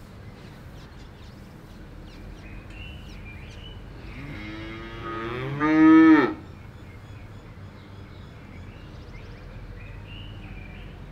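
A cow mooing once: one long call of about two seconds in the middle, growing louder toward its end and stopping sharply, over a steady outdoor background.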